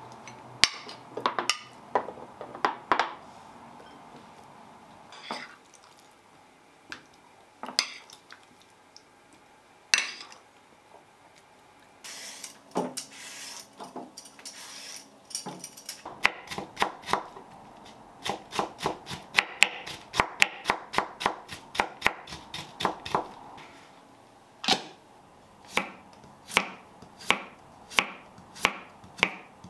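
Kitchen work sounds. First a wooden spoon knocks and scrapes against a glass food-storage container and a ceramic bowl. A short stretch of running tap water at the sink follows around the middle. Then a chef's knife slices a cucumber on a wooden cutting board in quick, even strokes, slowing to about one and a half cuts a second near the end.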